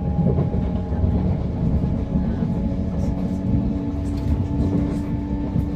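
Southern Class 377/6 electric multiple unit running, heard from inside the carriage: the traction motors make a steady whine of several held tones over the rumble of the wheels on the track, and the pitch pattern shifts about two seconds in, one tone fading as a slightly higher one takes over. The title calls this a strange motor sound.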